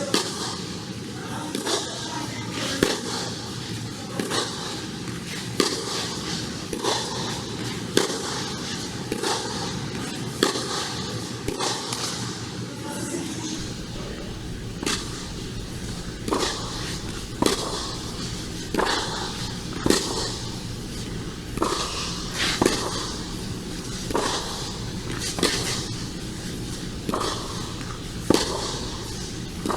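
Tennis rally: a sharp pop of ball on racket strings, and the ball bouncing between the strokes, recurring steadily about every 1.3 seconds.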